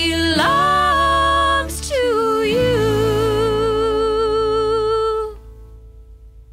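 The end of a song: a singer holds a long final note with vibrato over a low accompaniment, then the music stops about five seconds in and fades away.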